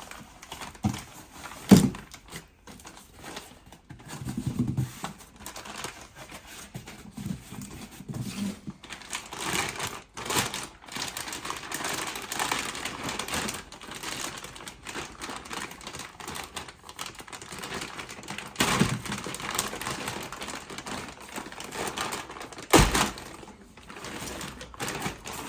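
Handling noise from the coolant expansion tank and its packaging: irregular rustling, crinkling and clicking, with a sharp knock about two seconds in and another near the end.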